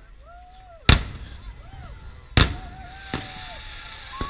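Aerial firework shells bursting overhead: two loud booms about a second and a half apart, then a smaller bang, with a high hiss lingering after the second boom.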